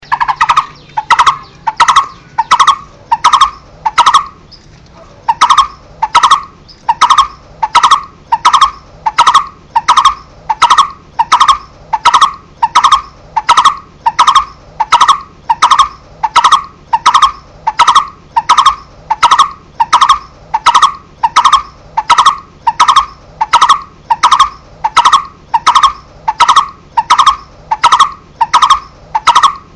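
Coppersmith barbet calling: a loud, monotonous hollow 'tuk' repeated about twice a second, with one short pause about four seconds in.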